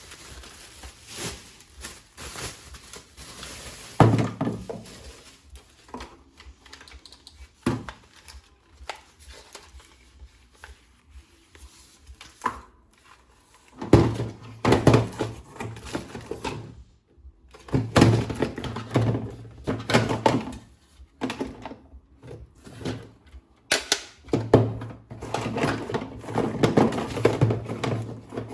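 Hands handling a plastic toy gun and its packaging: irregular knocks, thunks and clicks, with quieter stretches between and a busier run of clatter near the end.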